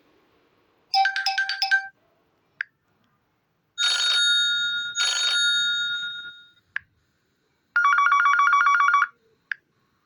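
Huawei Y5 2019 phone playing short ringtones one after another. First comes a quick run of beeps, then two bell-like rings that ring on, then a fast electronic trill like a telephone bell. Brief single clicks fall in the gaps between them.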